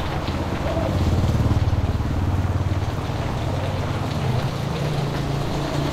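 A motor vehicle's engine running, its low hum rising in pitch toward the end, over a steady hiss of rain.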